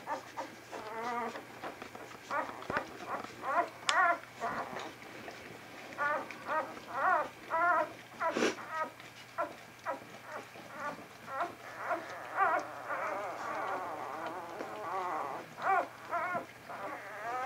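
Very young vizsla puppies squeaking and whimpering in short, high, wavering calls that come in irregular clusters, with one brief noise about halfway through.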